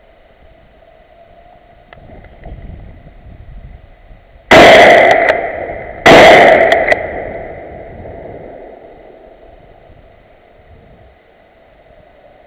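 Two loud gunshots about a second and a half apart, each dying away in a long echo through the forest.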